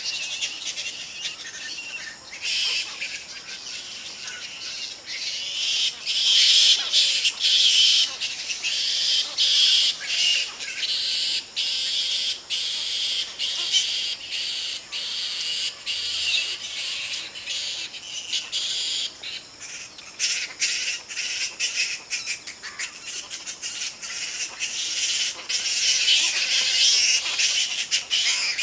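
A roosting colony of flying foxes (large fruit bats) calling: a dense stream of high-pitched calls and clicks that swells louder about six seconds in and again near the end.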